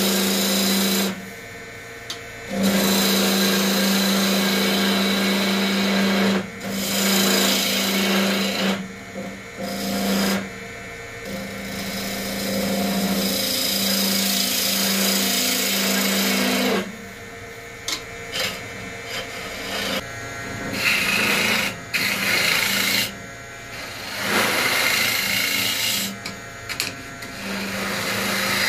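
Wood lathe turning a cherry-wood blank while a hand-held turning tool cuts into it: a rough scraping hiss over a steady hum. The cutting comes in repeated passes, stopping and starting every few seconds as the tool is lifted off and set back on the wood.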